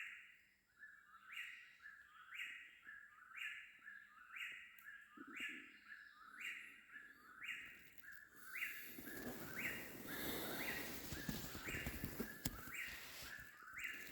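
Eastern whip-poor-will calling its 'whip-poor-will' over and over, about once a second, an awful racket. A rustling noise joins in from about two-thirds of the way through.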